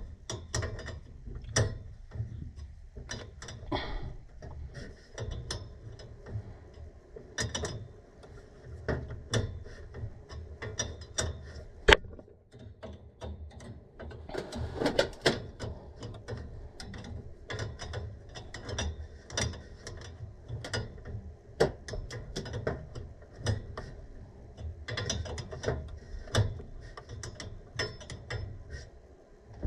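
Hand tools working on furnace gas-valve fittings: irregular metallic clicks, clanks and rattles, with one sharp knock about twelve seconds in.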